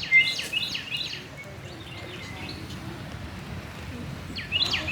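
Small wild birds calling close by. There is a quick run of short, sharp high notes, about five a second, in the first second, and another run near the end.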